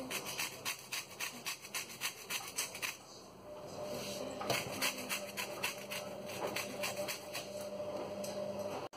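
Lemon rind scraped against a handheld metal grater while being zested: quick rasping strokes, a few a second, a short pause about three seconds in, then more strokes.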